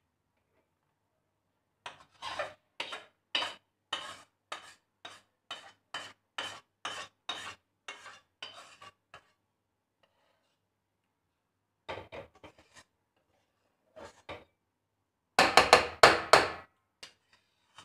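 Metal spatula scraping roasted gram flour out of a kadhai into a steel plate, in quick strokes about two a second, then a few scattered scrapes and a louder burst of scraping near the end.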